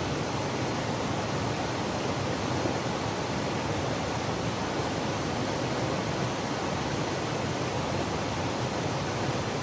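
Waterfall: water cascading onto rock and pools, a steady rushing with no change.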